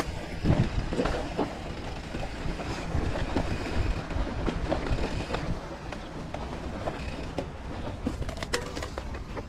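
Mountain bike clattering over a rocky trail: tyres crunching on stones, with a steady stream of knocks and rattles from the bike over a low rumble. The hardest knocks come in the first second or so.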